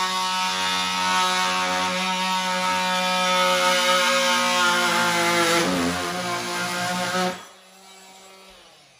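Hand-held corded power tool running steadily at one pitch as it cuts into a hardwood floorboard, the pitch wavering briefly under load; it switches off a little after seven seconds in and a faint hum dies away.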